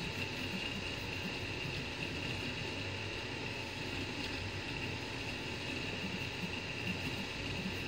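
FDM 3D printer running mid-print: a steady fan whir with a constant high whine, over a low, shifting mechanical buzz from the moving print head.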